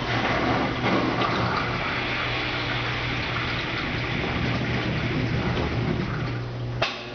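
Washing machine drain pump running with a steady hum as water rushes and gurgles out of the tub at the end of the wash. A sharp click comes near the end, after which the water noise drops away and a quieter, steadier motor tone remains.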